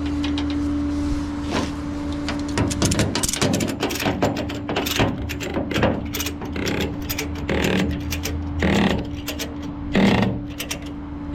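A tow truck's engine and hydraulics running with a steady hum, overlaid from a couple of seconds in by a run of quick metallic clicks and clanks, with a few louder knocks near the end, as tie-down gear is worked.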